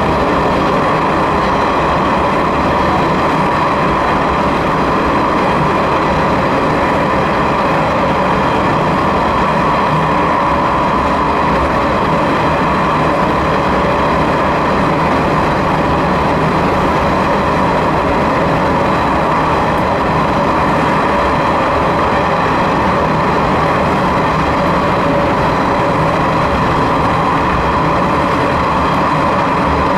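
Sanriku Railway 36-100 series diesel railcar running steadily through a tunnel, its engine and wheel noise a constant loud din with no change in pace.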